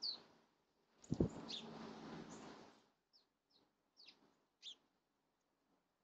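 A small songbird gives a few short, high chirps that sweep downward, one at the start and four more spaced through the second half. About a second in, a rush of noise with a low thump comes over them and dies away after about two seconds.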